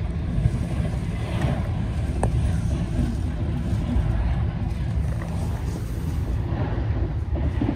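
A train of red passenger coaches on the adjacent track rushing past, a steady rushing rumble of wheels and bodies heard through the closed window of a moving air-conditioned sleeper coach, over the coach's own low running rumble. The rushing grows about half a second in.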